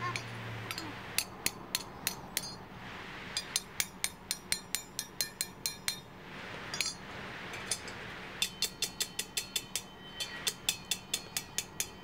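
Hammer blows driving a slightly oversized metal pipe into a tight-fitting hole drilled in an empty steel gas bottle. The strikes come in several quick runs of about four or five a second, with short pauses between runs, and some runs ring metallically.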